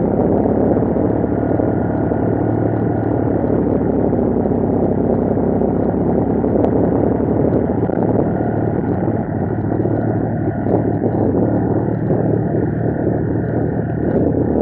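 Snowmobile engine running steadily at riding speed, a constant drone under a dense rush of noise.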